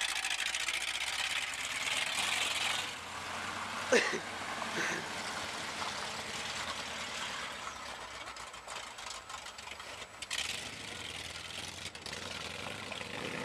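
1979 Dodge van's engine running as the van drives across a gravel lot, louder for the first three seconds and quieter after. A short, sharp high sound about four seconds in.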